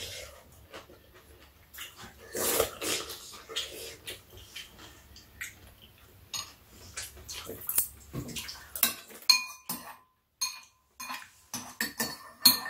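Metal spoons and chopsticks clicking and clinking against ceramic bowls and a metal tray while two people eat, with noisy slurping of noodles and soup in between. The clinks come irregularly, several a second at times, and some ring briefly.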